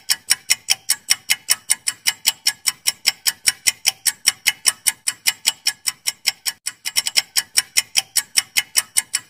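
Quiz countdown-timer ticking sound effect: a clock-like tick repeating rapidly and evenly, several ticks a second.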